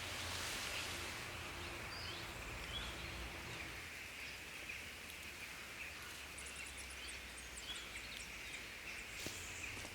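Forest ambience: a steady hiss with scattered bird chirps and a brief rapid high-pitched trill a little after halfway, and a few faint pops from a campfire near the end.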